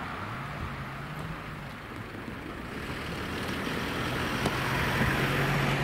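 Mitsubishi L200 pickup truck approaching and driving past close by, its engine hum rising and then growing louder along with tyre noise. Near the end come a couple of sharp knocks as its wheels roll over the level-crossing rails.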